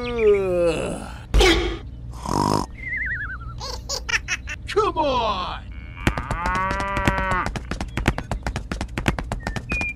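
A string of cartoon sound effects: a falling, groan-like voice at the start, a thud, and a wobbling whistle. About six seconds in comes a cow's moo lasting a second or two, over rapid, even ticking.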